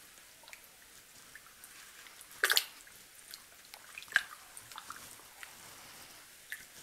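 Dye bath water in a plastic tub sloshing and dripping as a submerged shirt is stirred with a spoon, in small scattered splashes; the loudest comes about two and a half seconds in.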